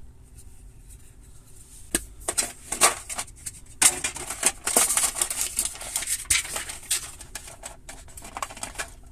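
Handling of the SSD's small box and cables: irregular rustling and crinkling of packaging with scattered sharp clicks, busiest in the middle, over a faint steady hum.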